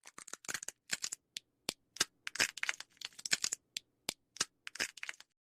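Small birds pecking and scratching at a lump of lard on a feeder: a quick, irregular run of sharp taps and crackles that stops near the end.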